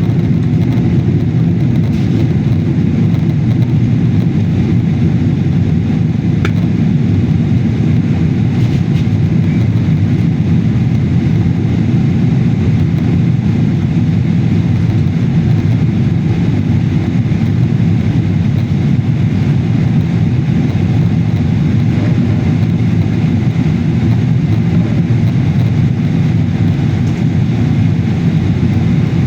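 Steady, loud rumble of a jet airliner heard inside the passenger cabin in flight, the engines and airflow making an even low drone.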